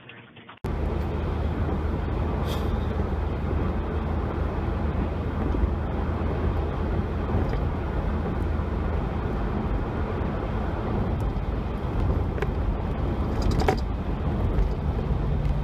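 Car driving: steady engine and road noise with a low hum, starting abruptly about half a second in, with a few sharp ticks scattered through it.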